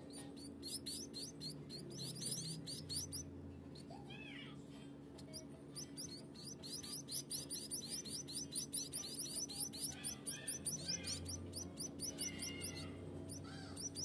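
Society finch (Bengalese finch) nestlings about fifteen days old making fast runs of high-pitched chirps. One run comes in the first three seconds, then a short pause, then a longer, louder run from about five seconds on.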